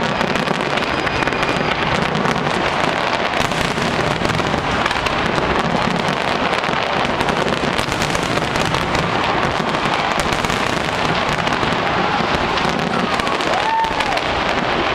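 Large aerial fireworks display, many shells bursting at once in a thick, unbroken crackle of bangs with no pause.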